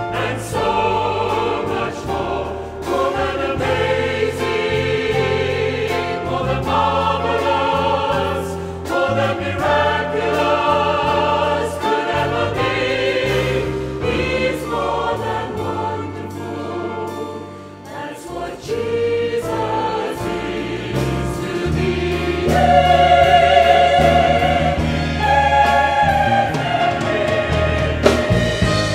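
A choir singing a Christian hymn with instrumental accompaniment, in held chords over sustained low notes.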